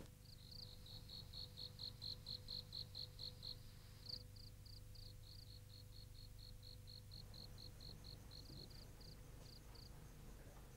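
Crickets chirping faintly in a steady rhythm of short, high chirps, about four a second, a little louder in the first few seconds.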